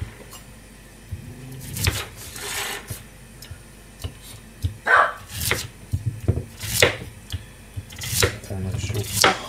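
Chef's knife slicing through a peeled daikon radish into thick rounds, each cut ending in a sharp knock on a plastic cutting board, several times with gaps between.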